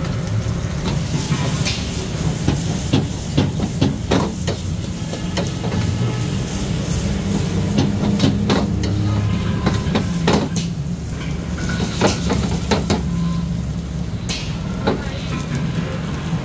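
Gas wok burner running with a steady low rush while a metal ladle clanks and scrapes irregularly against a steel wok, stir-frying vegetables with a sizzle and hiss of steam.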